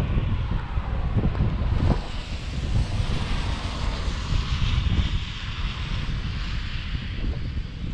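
Car driving on a rain-soaked road: a steady low rumble of road and tyre noise, with a hiss of water spray that swells from about two to five seconds in.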